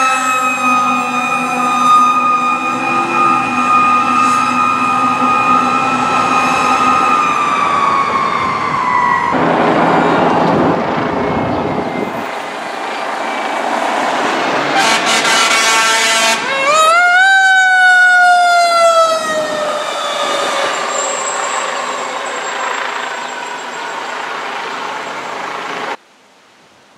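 Fire truck siren running: a high tone that holds, then slides down, then rises sharply and slowly winds down again. A short horn blast comes a little past the middle. Near the end the sound cuts off abruptly.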